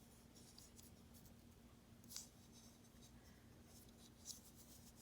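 Near silence with faint rustling and a few light clicks of small toy pieces being handled, the clearest two about two seconds in and near the end.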